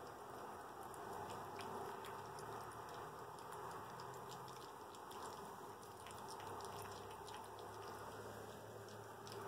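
Puppies eating wet food from an open tin: faint chewing with many small scattered clicks.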